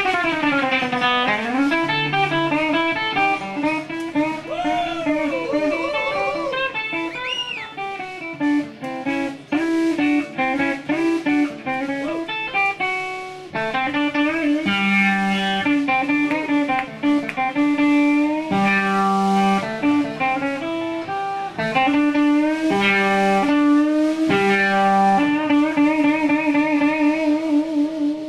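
Live instrumental surf rock: twangy electric guitars over drums. The lead guitar slides down in pitch at the start and bends notes a few seconds in, then settles into a repeating riff from about halfway.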